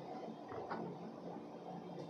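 Quiet room hum with two faint light clicks about half a second in, as a glass of water is taken up off the table.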